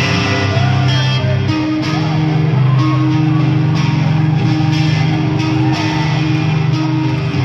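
Metalcore band playing live: electric guitar and bass come in abruptly together, then hold ringing chords over sustained low bass notes.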